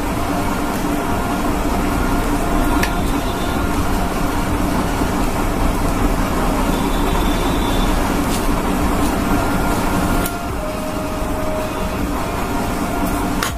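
Steady mechanical rumble with a faint hum, a little quieter from about ten seconds in, with a few light clicks over it.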